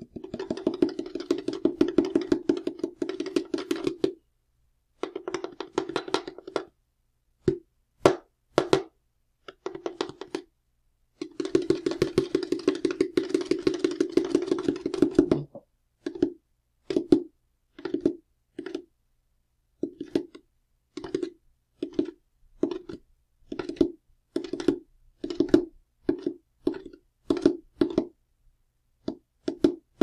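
Drum rolls: several sustained rolls of a few seconds, with single strokes in the gaps, the longest lasting about four seconds. They give way past the halfway point to short half-second rolls repeated about once every 0.7 seconds.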